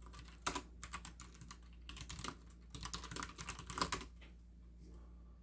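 Typing on a computer keyboard: a quick, irregular run of keystrokes that stops about four seconds in.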